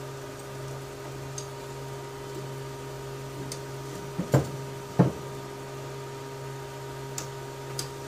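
Handling noise from hands tugging telephone wires through an Amphenol RJ21 insertion tool: a few faint ticks and two sharp knocks about four and five seconds in, over a steady background hum.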